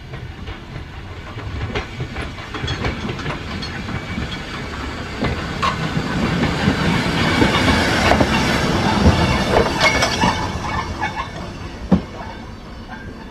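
Railway goods brake van rolling freely by gravity, its wheels clicking over rail joints and pointwork, growing louder as it approaches and passes close by. A single sharp knock near the end.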